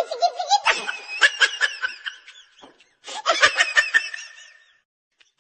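Laughter in two bouts of quick, broken chuckles, the second starting about three seconds in and dying away near the end.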